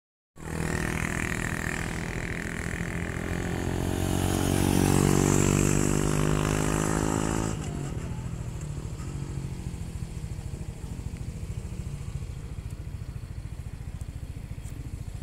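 Small motor scooter engine running as it rides through a hairpin bend, growing louder to a peak about five seconds in, then dropping away sharply about halfway through. A quieter, steady low engine rumble goes on after that.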